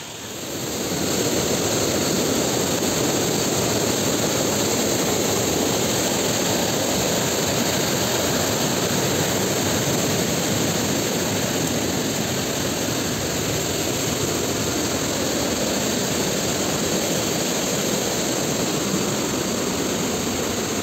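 Fast mountain stream rushing white over boulders below a bamboo footbridge: a loud, steady rush of water that swells in about a second in and holds evenly.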